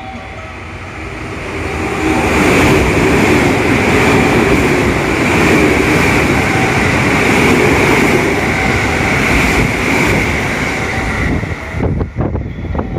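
A train running past at speed on steel rails. The rushing wheel-on-rail noise builds over the first two seconds and holds loud and steady for about nine seconds, with a steady high-pitched ring. Near the end comes a quick run of clacks as the last wheels pass over the rail joints.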